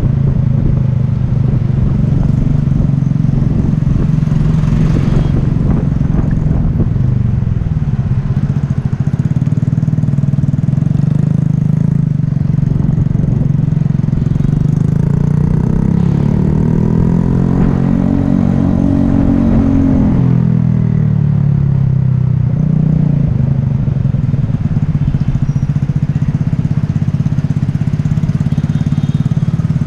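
Yamaha Taurus motorcycle's single-cylinder four-stroke engine running steadily, its pitch rising and then falling back once a little past halfway as the revs go up and come down.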